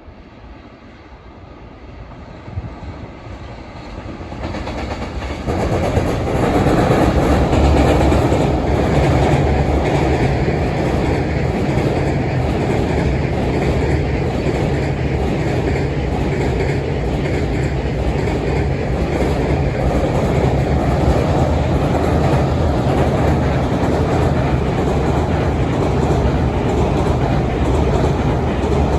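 A long freight train approaching and then passing close by: the sound builds over the first six seconds or so, then holds loud and steady as the wagons run past on the rails.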